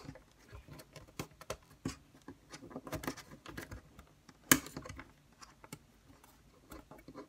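Wooden popsicle sticks clicking and tapping against each other and the tabletop as they are woven together, irregular light clicks with one sharper knock about four and a half seconds in.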